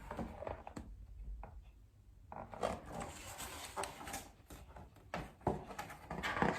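Faint handling sounds of a picture book: soft rustles and light knocks as a page is turned and the book is held up, a few separate sounds with quiet gaps between.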